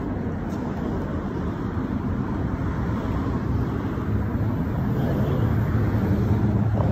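Steady low rumble of street traffic, growing slightly louder, with wind buffeting the phone's microphone.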